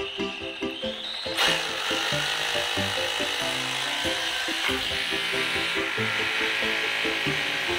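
Blue Bosch corded power drill speeding up about a second in, then drilling steadily into a tiled wall, over background music.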